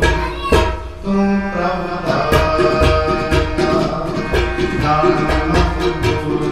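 Harmonium playing a Sikh kirtan melody in held chords and notes, with tabla strokes keeping a steady beat. The music dips briefly about a second in, then carries on.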